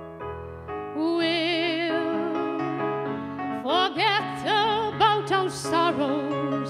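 A song performed by a singer with instrumental accompaniment. About a second in the voice holds one long note with wide vibrato. Past the middle it moves into a string of short notes that slide up into one another in a higher range, over steady low accompaniment notes.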